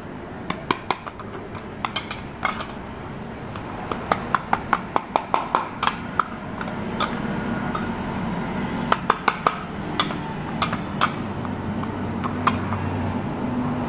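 A steel spoon stirring a thick paste of aloe vera gel and powder in a small container, clinking against its sides in irregular runs of sharp clicks, with a fast run about four to six seconds in. A low steady hum in the background grows in the second half.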